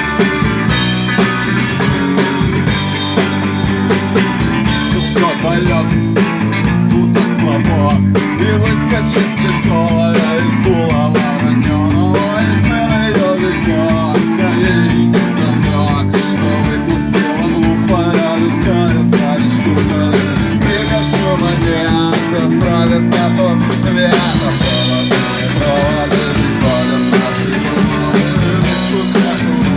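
Rock band playing a song: electric guitar, bass and drum kit, with a wavering lead melody through the middle of the passage, where the cymbals drop back before the full band returns.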